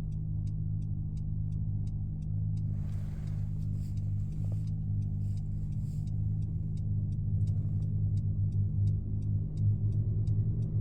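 Steady low hum from the back of a 2015 Honda CR-V, a few low tones held level, growing slightly louder near the end: the humming noise the owner is tracking down. A faint regular ticking, about three a second, runs alongside it.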